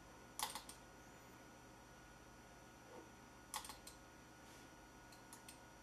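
Computer mouse button clicked in quick double-clicks, two clusters of sharp clicks about three seconds apart, with a couple of faint clicks near the end.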